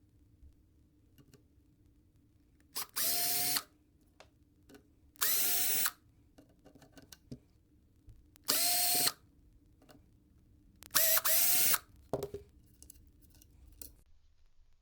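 Makita BO4550 orbital finishing sander's electric motor switched on and off in four short bursts of under a second each, spinning up with a rising whine and cutting off each time.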